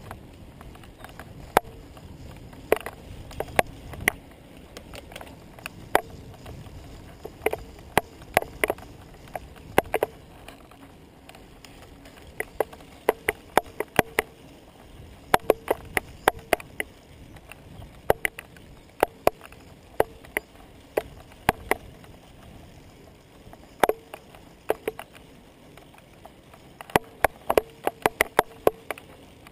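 Wheels rolling down a bumpy asphalt road: a steady low rolling noise broken by many sharp clacks and rattles at irregular intervals, some in quick bursts, as the wheels hit cracks and bumps.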